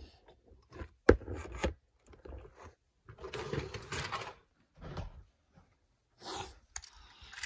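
Handling noises from plastic objects being picked up and moved: a sharp knock about a second in, then scraping and rubbing, with a few shorter knocks and rustles after.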